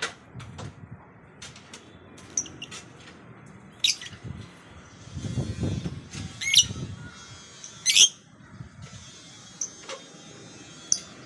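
Lovebird giving short, shrill chirps, a handful spaced a second or two apart, the loudest two coming past the middle, over a low rumble that swells midway.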